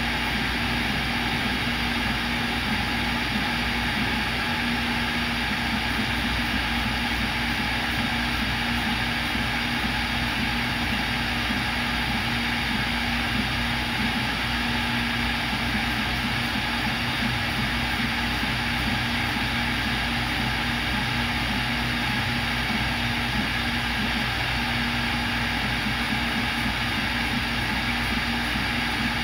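CNC router spindle running steadily at high speed while drilling holes in a copper-clad circuit board: a constant machine whine over an even noise, with no change in level.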